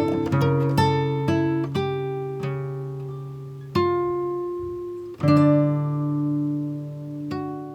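Background music: acoustic guitar picking single notes that ring out, slowing near the end to a few held chords that fade away.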